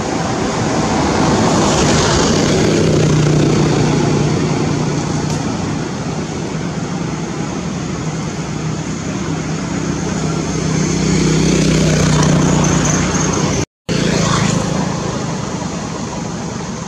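Motor-vehicle engine noise, steady with a low hum, swelling twice as vehicles pass; the sound cuts out for an instant near the end.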